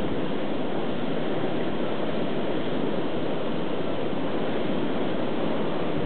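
Strong blizzard wind blowing hard and steadily across open ground, a constant even rushing noise with no gaps.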